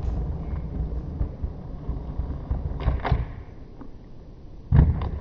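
Inline skate wheels rolling over brick pavers with a low rumble, a sharp hit about three seconds in, then the loud smack of the skates landing from a jump near the end.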